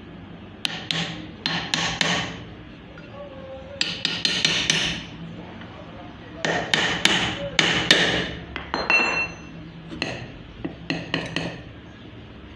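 Hammer blows on metal in five short bursts of rapid strikes, with brief metallic ringing after some of them.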